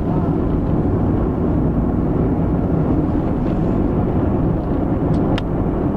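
Car driving, with a steady low rumble of engine and road noise heard from inside the cabin. A couple of faint clicks come about five seconds in.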